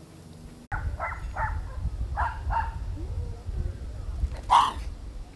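Dogs barking: a run of short barks about a second and two seconds in, then one loud bark near the end, over a low rumble.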